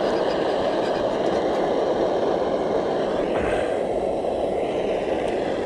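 Portable gas camping stove burner running with a steady hiss under a frying pan of morels.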